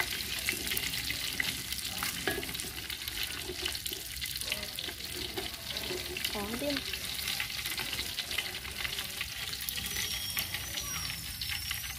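Masala-coated fish sizzling and crackling steadily in hot oil in an aluminium pan, nearly done frying. A wooden spatula and a slotted metal spoon stir and scrape in the pan as the fish is turned and lifted.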